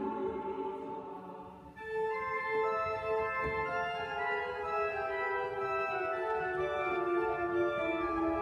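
A choir's singing fades out, then from about two seconds in a church organ plays steady held chords.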